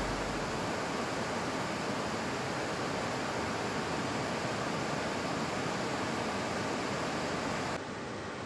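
Floodwater rushing down an open dam spillway, heard as a steady, even hiss. It drops quieter near the end.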